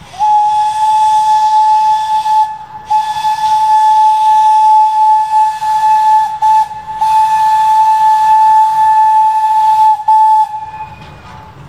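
Whistle of the Thomas the Tank Engine locomotive blown in long blasts at one steady pitch with an airy hiss, broken by short gaps about two and a half, six and a half and ten seconds in, stopping about ten and a half seconds in.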